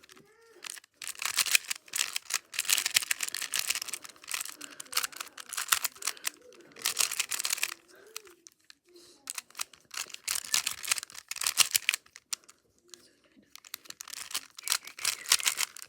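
A plastic 3x3 Rubik's cube being turned fast during a speed-solve: rapid clicking and clacking of the layers in bursts of one to three seconds, with short pauses between them.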